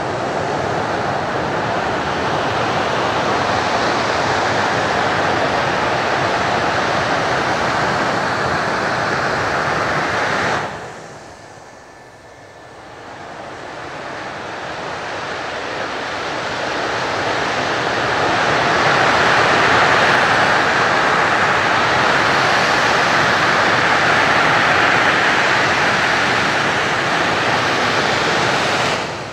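Twin J79 turbojets of an F-4EJ Kai Phantom II running at high power on the runway: a loud, steady jet roar. It drops away sharply about ten seconds in, then builds back up over several seconds and holds loud.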